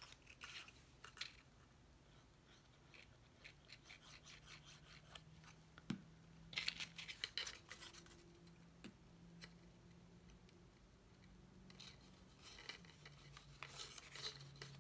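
Faint rustling and crackling of folded cardstock being handled and pressed together by hand while glued tabs are set. The noises come in clusters about six seconds in and again near the end, over a faint steady hum.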